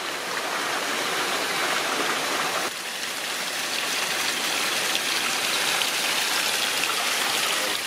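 Steady rushing noise of running water, dipping slightly about a third of the way in.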